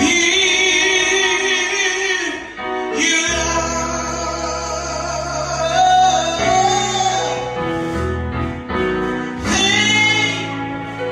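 Gospel music: a woman sings long held notes in phrases of two to three seconds over a steady instrumental backing with sustained bass notes.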